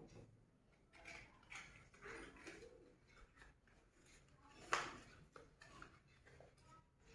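Near silence: room tone with a few faint soft sounds and one short sharp click about two-thirds of the way through.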